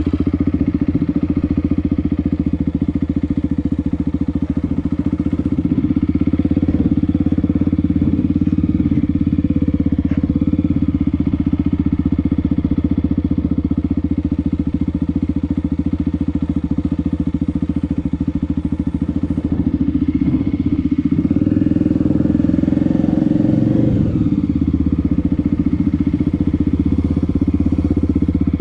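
Honda XR250 Tornado's single-cylinder four-stroke engine running at low riding speed, steady for most of the time, picking up revs briefly about three quarters of the way through and then easing off.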